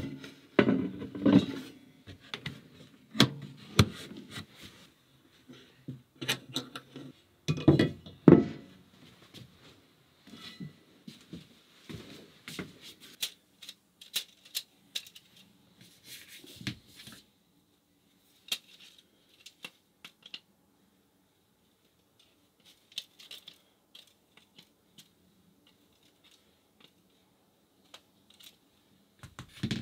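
Cast-iron Dutch ovens and lids clunking and knocking against each other and the wooden box as they are packed in, loudest in the first eight or nine seconds. After that come lighter scattered clicks and taps from handling a plastic vent grille, fading to faint ticks with quiet gaps.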